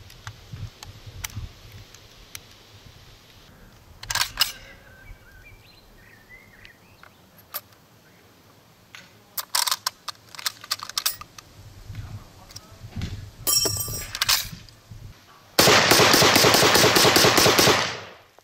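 Sharp metal clicks and clacks of an SKS-45 rifle being handled and loaded from a stripper clip. Near the end comes the loudest part, a dense, rapid rattle of gunfire-like reports lasting about two seconds, which fades out.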